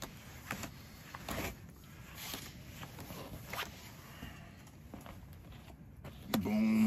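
Playing cards being dealt onto a fabric-topped table, a few light slaps and flicks spaced about a second apart. A person's voice cuts in briefly near the end.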